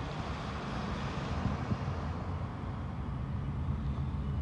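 Steady low engine rumble with an even outdoor hiss above it.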